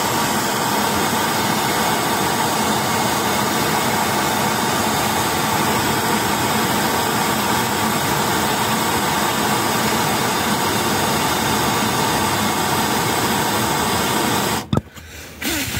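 Handheld gas blowtorch running with a steady hiss, heating the Ford DPF fuel vaporizer in place to burn off the carbon and the backed-up diesel in it. The hiss cuts off suddenly near the end.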